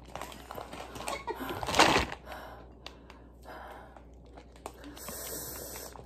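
A person's sharp, noisy intake of breath about two seconds in, the kind of gasp drawn in against the burn of very spicy food, amid quieter eating noises.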